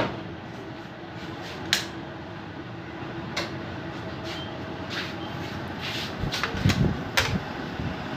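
Sharp metallic clicks and knocks from handling a steel wheel clamped on a wheel balancing machine, a loud one at the start and a few more spaced a second or two apart, over a steady hum, with some low thuds near the end.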